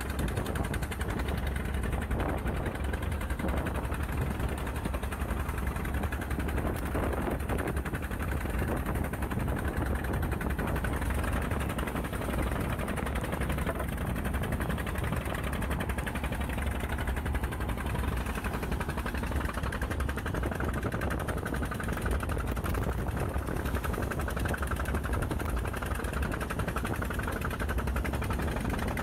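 Fishing boat's engine running steadily under way, a dense rapid low pulsing, with water rushing past the hull.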